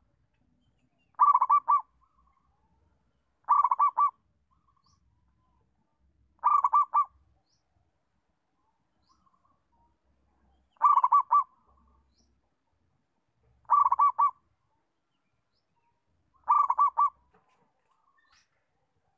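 Local-strain zebra dove (perkutut) singing: six short phrases of rapid staccato cooing notes, each about half a second long, a few seconds apart.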